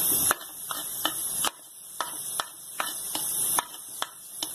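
Cumin and fenugreek seeds dropped into hot oil in an iron kadai, sizzling with a high hiss and irregular sharp crackling pops as the tempering starts.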